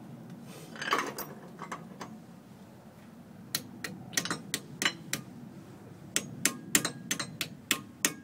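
Sharp, light metal taps from a hand tool striking Jeep wheel-hub hardware, coming irregularly about two a second from about three and a half seconds in, after a short clatter about a second in.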